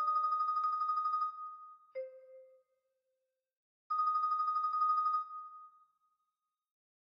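Synthesized marimba from MuseScore 2 playback: a high note rolled as a fast tremolo for just over a second, a single lower note, a pause, then the same high tremolo again, ringing out and fading. The rapid repeated strokes give it a phone-ring-like sound.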